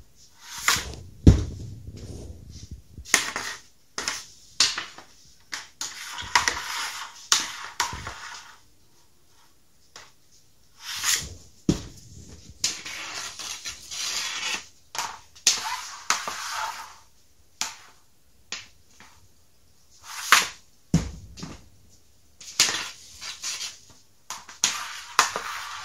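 Repeated hockey wrist shots off a plastic shooting pad. The stick blade scrapes across the pad, pucks clack sharply off the blade and pad, and there are three heavier thuds, about a second in, near the middle and near the end.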